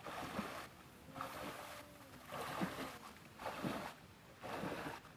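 Rhythmic splashing and rustling of a person wading through shallow swamp water and dense plants while hauling a wooden canoe through the vegetation, about five swishes roughly a second apart.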